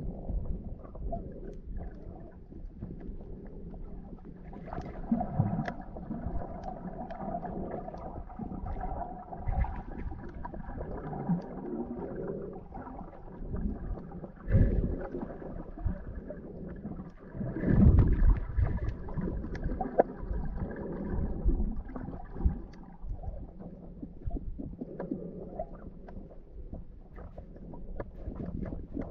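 Muffled water noise picked up by a camera held underwater: a low churning rumble with swishes and irregular thumps, the loudest about halfway through and again a few seconds later.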